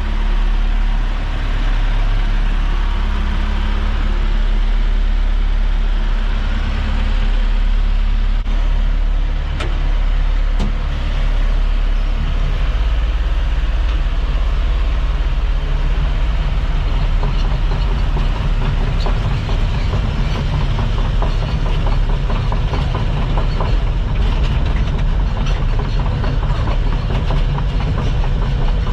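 Komatsu D39PX crawler dozer's diesel engine running loudly and steadily. About twelve seconds in, its deep note shifts and thickens into a rapid, even clatter as the machine works under load.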